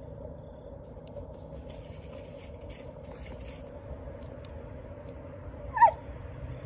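A dog gives one short, high yelp that drops in pitch near the end, over a steady low hum.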